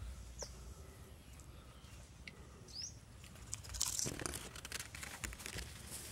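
Leafy branches rustling and crackling under someone shifting about on them, loudest about four seconds in, with a couple of brief bird chirps.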